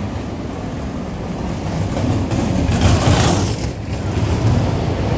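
City street noise: a loud, continuous rushing rumble that swells to its loudest about three seconds in.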